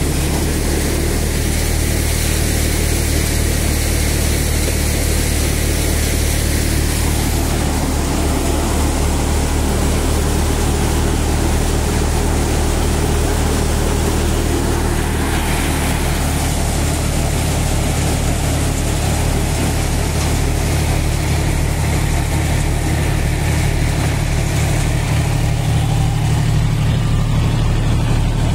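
A small tractor's engine running steadily while powering a Malwa tokari thresher, its low hum under the thresher's continuous rushing noise.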